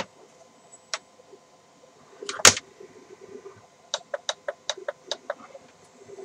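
A single click, then one loud sharp knock or bang about two and a half seconds in, followed by a quick run of about eight light taps or clicks, several a second.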